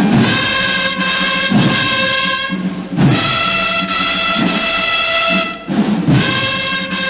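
Brass band playing a slow march: trumpets and trombones hold long chords over low drum beats, breaking off and starting a new phrase twice.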